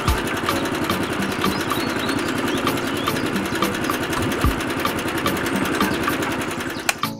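Small electric motor of a homemade toy concrete mixer running steadily, turning its tin-can drum, then switched off and stopping just before the end.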